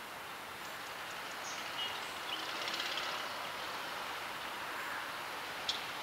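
Steady outdoor background noise of a harbour shore that swells a little in the middle. A few faint high chirps come about two seconds in, and a single sharp click near the end.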